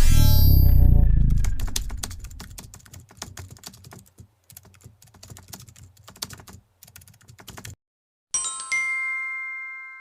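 Edited sound effects: a whooshing impact with falling sweeps that fades, then a rapid run of keyboard-typing clicks, then, about eight seconds in, a bell-like ding that rings on and fades.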